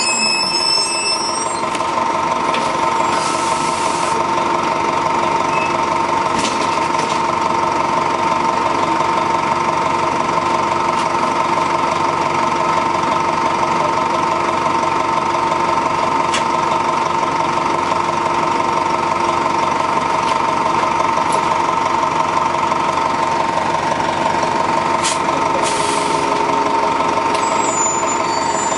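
Detroit Diesel Series 50 inline-four diesel in a 1996 Nova-RTS transit bus, running steadily with its pitch holding level throughout, heard from on board. A new low tone joins in near the end.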